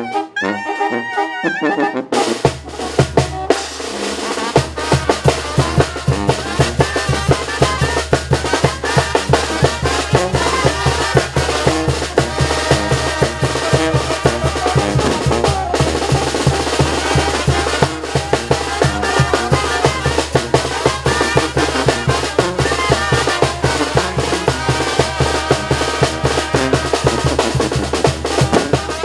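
Mexican banda music: a brass melody for about two seconds, then an abrupt change to the full band, with snare drum and bass drum keeping a fast, steady beat under the brass.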